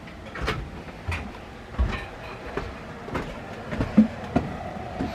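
Footsteps and handling knocks as a phone camera is carried through a house: a string of irregular thumps, about one or two a second, over a low rumble.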